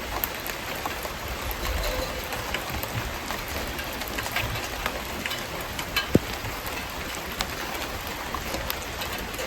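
Mackerel grilling over a wood fire: a steady sizzle with scattered crackles and pops from the burning wood and dripping fish oil, and one sharper pop about six seconds in.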